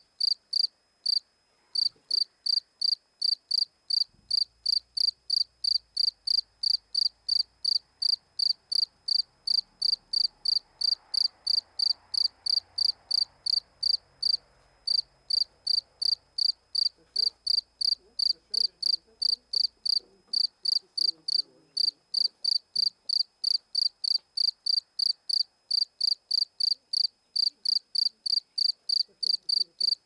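Male field cricket chirping its calling song: loud, evenly spaced high chirps at about three a second, with brief breaks twice.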